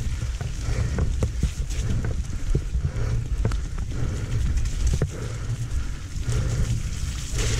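Mountain bike riding down a wet woodland trail: steady wind noise on the camera microphone, with scattered sharp knocks and rattles from the bike over rough ground.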